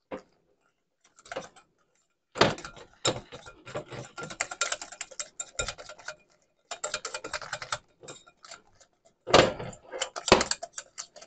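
Eggs, flour and seasoning being whisked together in a mixing bowl: rapid clicking of the utensil against the bowl, beating out the lumps of flour. It starts about two seconds in and goes in spells with short pauses.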